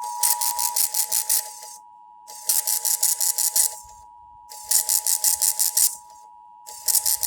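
Emergency Alert System two-tone attention signal (853 and 960 Hz together) sounding steadily for several seconds and stopping near the end. Repeated bursts of rapid, high-pitched rattling static, each a second or so long, cut in over it about every two seconds.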